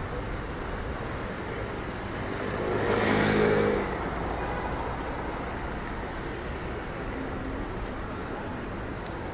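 Street traffic noise with a motor vehicle passing close by about three seconds in, its engine note swelling and then fading within about a second and a half.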